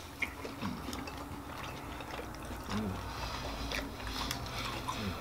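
Quiet eating sounds: steak being chewed, with a few light clicks of forks and knives against plates and a short low hum near the middle.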